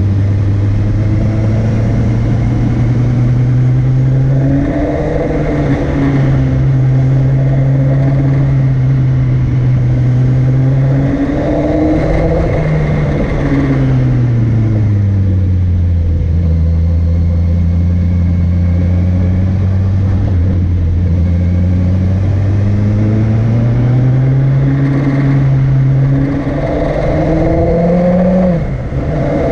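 Motorcycle engine running under load on an uphill climb, its pitch rising and falling with throttle and gear changes: it drops to a lower, steady note about halfway through and climbs again near the end.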